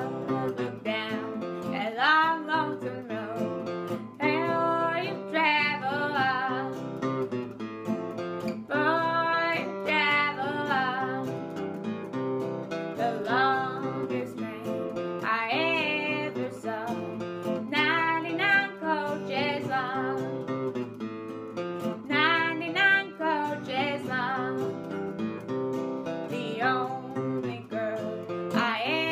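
A woman singing a traditional song, accompanying herself on a strummed acoustic guitar.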